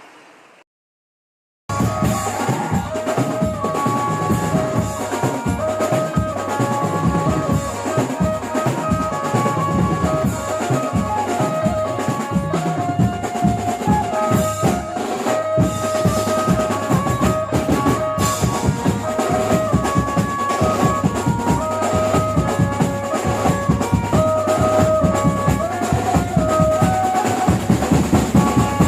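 Banjo-party band music: a busy, driving drum beat under a melody of stepping held notes. It cuts in sharply after a short gap of silence about a second and a half in.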